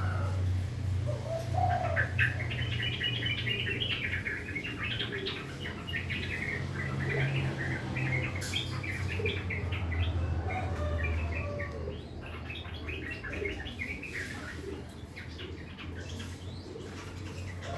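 Yellow-vented bulbul (trucukan) singing a long run of rapid, rough, chattering notes over a steady low hum.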